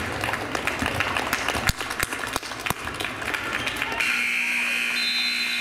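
Gym game sounds: voices shouting over crowd noise, with sharp knocks of a basketball bouncing on the hardwood floor. About four seconds in, the scoreboard horn sounds a steady buzz for about two seconds, marking the end of the game as the clock hits zero in the fourth period.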